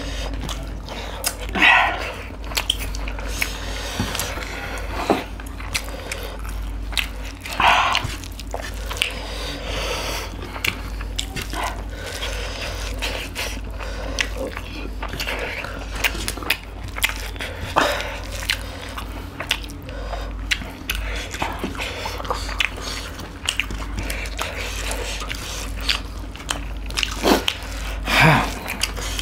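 Close-miked eating: chewing and lip-smacking with many small wet clicks as two people eat chicken curry and rice with their hands, over a steady low hum.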